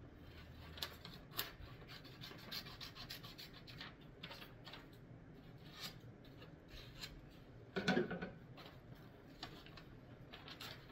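Butcher paper being handled and trimmed with scissors: scattered rustling, scraping and crinkling. A louder short bump about eight seconds in.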